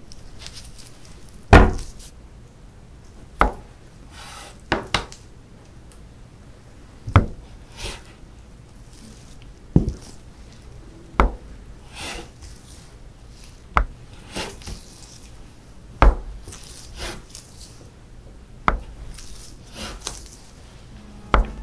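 Cold-process soap loaf being cut and handled on a wooden board: about ten sharp knocks spaced every two to three seconds, with soft sliding sounds between.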